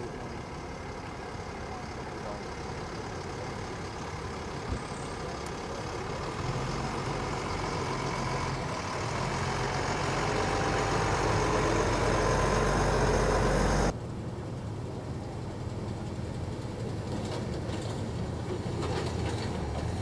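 Fire truck engines running. One truck grows steadily louder as it pulls up close, then its sound cuts off abruptly about two-thirds of the way through. After that another heavy truck engine runs steadily nearby, slowly getting louder.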